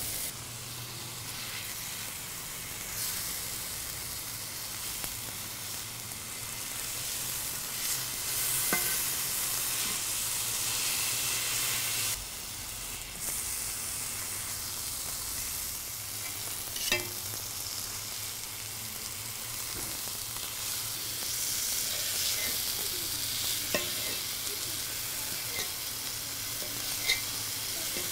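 Wagyu strip steak sizzling on a hot flat-top griddle, a steady high sizzle that dips briefly about halfway through. A few sharp clicks of the steel knife and carving fork against the griddle plate come through it.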